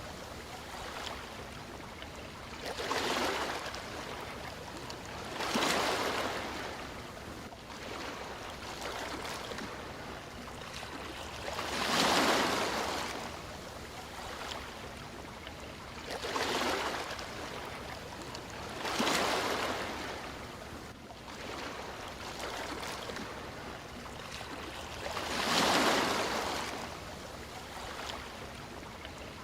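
Sea waves: about six surges of surf that swell and fade, with a steady wash of water between them.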